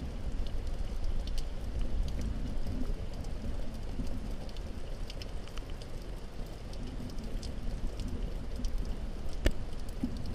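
Hurricane wind and rain: a steady low rumble of wind buffeting the microphone, with scattered ticks of raindrops and one sharper click near the end.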